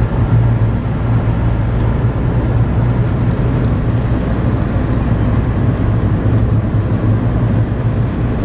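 Steady road and engine noise heard inside a moving taxi's cabin: a constant low rumble of tyres and engine.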